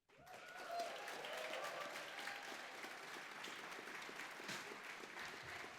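Audience applause starting suddenly at the end of a stage performance and holding steady as a dense patter of clapping.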